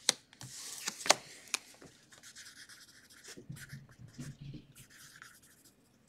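Handwriting with a pen: light, short scratching strokes. A few sharp clicks come in the first second and a half, the loudest about a second in.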